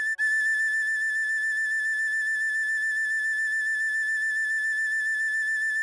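Tin whistle playing a high A in the second octave: the note is re-sounded just after the start, then held steadily.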